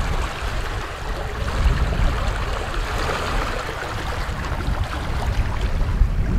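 Lake water rushing and splashing in the wake at a pontoon boat's stern, with wind rumbling on the microphone, stronger near the end.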